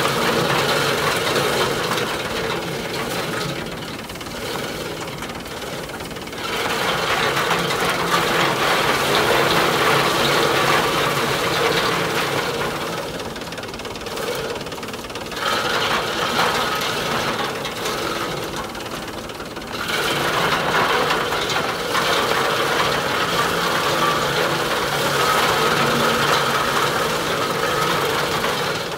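Tractor-driven groundnut separator machine running while bunches of groundnut plants are fed in by hand, with the 40 hp tractor's engine running at low speed. The machine noise grows louder and quieter by turns every few seconds.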